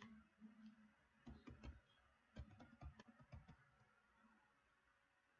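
Near silence broken by faint clicks at a computer: a few about a second in, then a longer run from about two and a half to three and a half seconds in.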